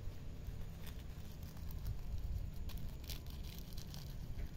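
Hands rubbing and flexing a small jute burlap pouch, giving soft scattered rustles and scratches of the coarse fabric, busiest about three seconds in, over a low steady rumble.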